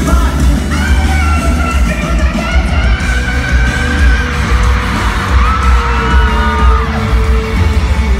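Live pop-rock band playing loudly through a concert PA, heard from within the crowd on a phone microphone, with a heavy, distorted low end. A voice holds two long high notes over the band.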